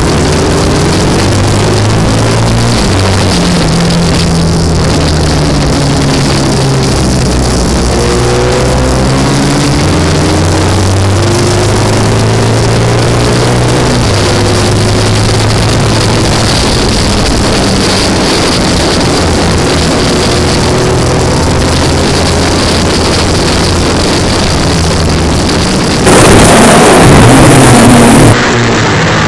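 Racing sidecar outfit's engine heard onboard at speed, with wind rushing over the microphone; its pitch rises and drops in steps as it goes up and down the gears. Near the end a harsher, louder rush lasts about two seconds.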